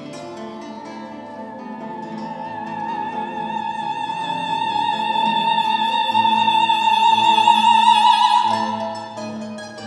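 Soprano voice holding one long high note with vibrato over classical guitar accompaniment, swelling to its loudest and then breaking off about eight and a half seconds in, leaving the guitar playing alone.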